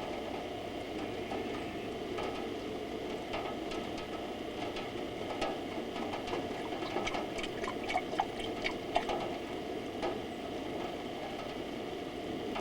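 Steady rain falling, with scattered drops ticking and splashing more sharply near the middle.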